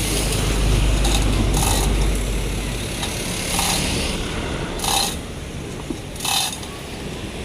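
Metal ratcheting and clinking in short separate strokes, about one every one to one and a half seconds, during work to fit a bus engine. A low rumble runs under it and drops away about three seconds in.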